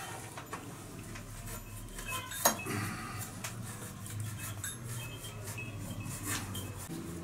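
Scattered metallic clicks and clinks of leather-working at a bench-mounted hand press, as straps and metal fittings are handled and the press is worked. One sharp click about two and a half seconds in is the loudest.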